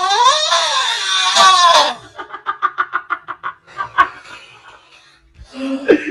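A person's loud, high wailing cry that rises in pitch and wavers for about two seconds, followed by a quick run of short pulsed voice sounds, about eight a second, like giggling. There is a sharp click about four seconds in.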